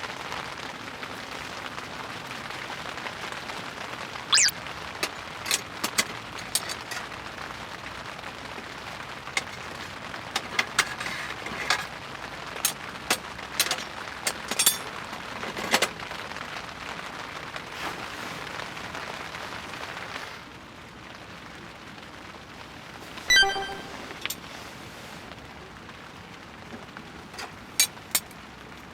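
Steady rain with scattered sharp taps and cracks. About 23 seconds in comes a single ringing metallic clink.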